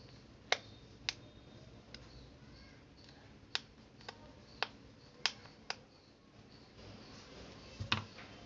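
Irregular sharp clicks, about nine in all, from a thin metal tool and fingers working at an LED bulb's aluminium housing and its LED circuit board.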